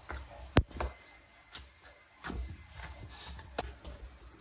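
Hands kneading wheat-flour dough in a stainless-steel tray: soft pressing thuds with scattered taps against the metal, and one sharp knock about half a second in.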